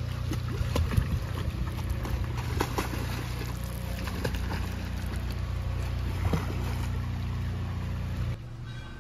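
Water splashing from swimmers kicking and stroking in a pool, over a steady low hum. The hum changes and drops a little near the end.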